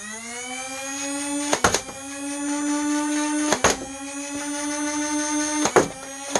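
The Nerf Fortnite IR's electric flywheel motors whining as they spin up, rising in pitch at the start and then holding steady. Three darts are fired about two seconds apart, each shot a sharp clack with the whine dipping briefly as the flywheels grab the dart.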